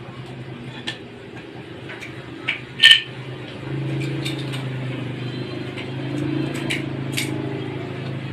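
Light clicks and clinks of a digital thermometer and its plastic case being handled, the sharpest click about three seconds in. A steady low hum comes in about halfway through.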